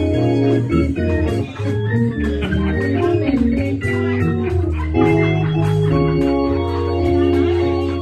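Organ music: sustained chords over held bass notes that change every second or so.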